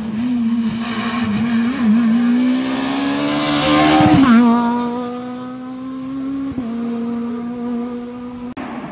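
Rally car engine running hard as it comes past close by. It is loudest about four seconds in, and its pitch drops sharply as it goes by, then holds steady as it pulls away.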